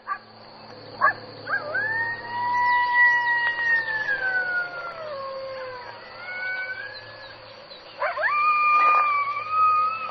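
Jackal howling: a long wailing call that rises, holds and then slowly slides down in pitch, with a fainter second voice overlapping near the middle. A new howl rises about eight seconds in and holds with a wavering pitch.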